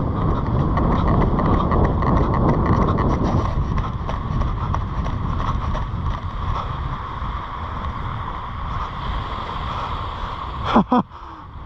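Wind buffeting the microphone while the person holding it moves fast along the beach, with footfalls on sand ticking through the first few seconds. A brief voiced cry, sliding down in pitch, comes near the end.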